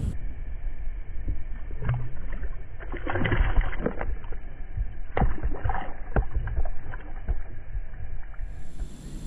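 Muffled knocks and handling bumps on a plastic kayak, with water splashing as a small fish is released back into the pond, over a steady low rumble.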